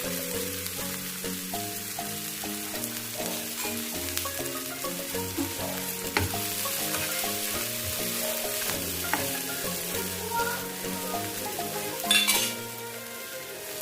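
Food sizzling and frying in a hot pan while being stirred, with a few sharp utensil clicks and a brief louder surge of sizzling near the end. Background music plays underneath.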